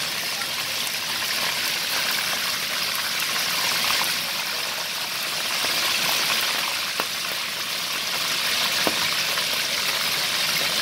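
Fish pieces deep-frying in hot oil in a stainless steel pan: a steady, even sizzle, with two sharp ticks in the second half.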